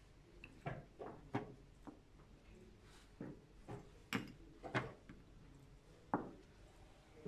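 Chess pieces knocked down on the board and a digital chess clock's button tapped in quick succession during a blitz game: a run of sharp clicks and knocks, several a second at times, with short gaps between.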